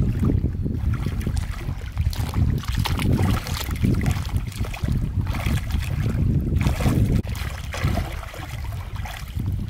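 Lake water splashing and sloshing in irregular bursts as a person bathing chest-deep stirs it with her arms and hands. Wind buffets the microphone with a steady low rumble.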